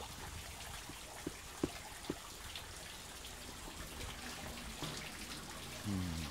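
Water trickling steadily from a garden hose into a spa tub being filled, with a few faint clicks in the first couple of seconds and a brief low voice near the end.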